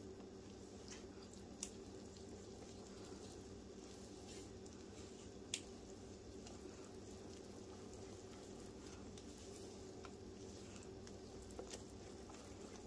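A wire whisk stirring thick, sticky batter in a bowl as flour is worked into the wet ingredients: faint wet squishing, with a few sharp taps of the whisk against the bowl, over a low steady hum.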